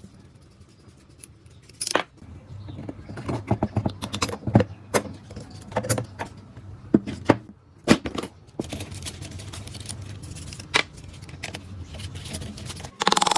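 Metal parts and hand tools being handled, clinking, rattling and knocking at irregular intervals, with a short, harsher burst of sound near the end.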